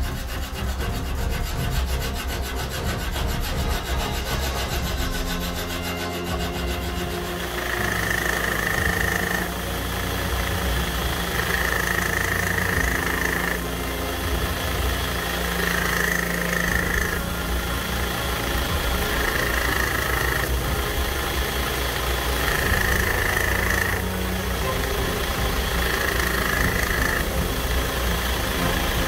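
Belt grinder running with its motor humming while a steel knife blade is ground on the abrasive belt. From about a quarter of the way in, the blade is pressed to the belt in six passes, each adding a grinding rasp of a second or two.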